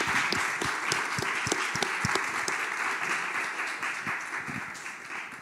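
A small audience applauding, the clapping dying away toward the end.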